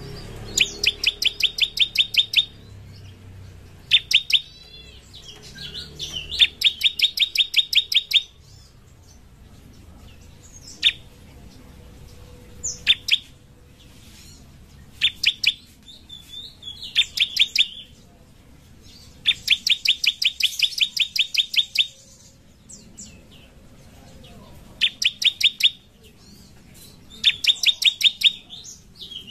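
Bar-winged prinia (ciblek) singing in repeated bursts of rapid, sharp, high chip notes, about eight a second, each burst lasting one to three seconds. Single loud notes and short twitters fall between the bursts.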